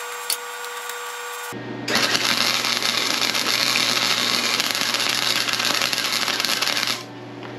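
Flux-core MIG welding arc crackling and sizzling as Harbor Freight Vulcan .030 self-shielded wire is fed into a steel plate. It strikes about two seconds in and stops near the end. At this wire-feed setting the welder reports the wire kept stubbing, which is cured later by lowering the feed speed.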